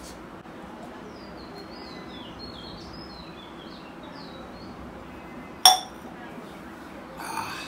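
A steel tumbler is set down on a concrete floor with a single sharp, ringing clink about three-quarters of the way through. Small birds chirp repeatedly in the background.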